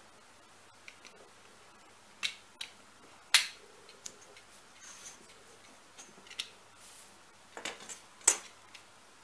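Sharp clicks and taps from a metal craft knife and steel ruler being handled on a cutting mat while a paper pattern is cut, with faint scraping between them; the loudest click comes about a third of the way in, with another cluster near the end.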